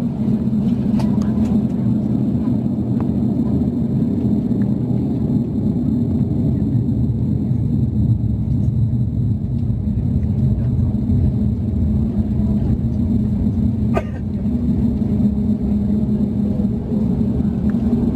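Steady low rumble inside the cabin of an Airbus A350-900 taxiing, its Rolls-Royce Trent XWB engines at low taxi power, with a single sharp click about fourteen seconds in.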